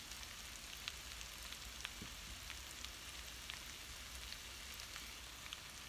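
Eggs, fried potatoes, peppers and onions sizzling faintly in a stainless steel skillet, a steady hiss with scattered small crackles. The burner is off, so this is leftover pan heat just rewarming food that is already cooked.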